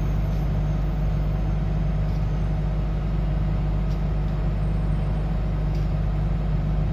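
Diesel engine of a Sunward rotary piling rig running steadily with a deep hum, with a few faint clicks over it.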